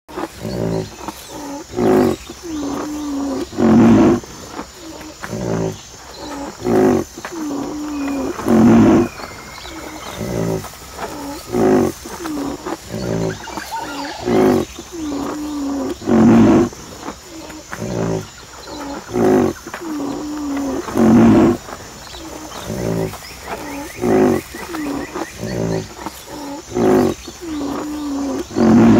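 Rhinoceros calling: a repeating series of short, deep grunting calls every couple of seconds, with the loudest call coming back about every five seconds, like a looped recording.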